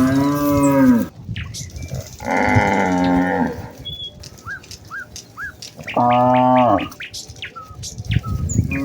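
Cows in a herd mooing, four calls of about a second each, a couple of seconds apart, the last starting near the end. Short bird chirps sound faintly between the moos.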